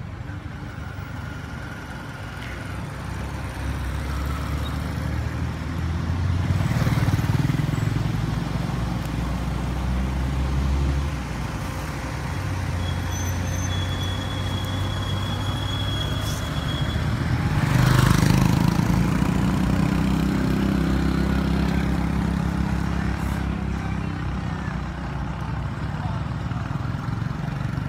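Road traffic: motor vehicle engines and tyres rumbling past, swelling twice as vehicles pass, about a quarter of the way in and again past the middle.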